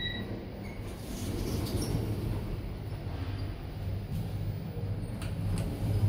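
Otis ReGen elevator car travelling: a steady low hum of the machine and ride noise, growing louder about a second in. A short electronic beep sounds at the start, and a couple of sharp clicks come near the end.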